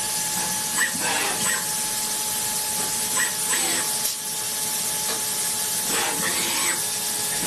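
CNC machine running: a steady hiss with a thin, steady high whine, and a few short scattered sounds over it.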